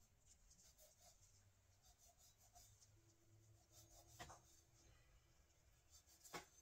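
Faint scraping of a chef's knife scoring raw chicken breast on a bamboo cutting board. There is a soft knock about four seconds in and two sharper knocks near the end.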